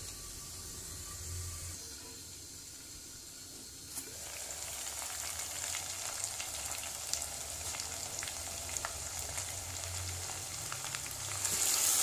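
Chicken pieces sizzling in hot oil in a pot, muffled under a glass lid at first. About four seconds in, the sizzle turns louder and crackly with the pot uncovered, and it is loudest near the end as a spatula turns the pieces.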